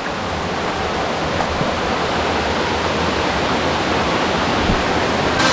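Waterfall: a steady rush of falling water, growing slightly louder.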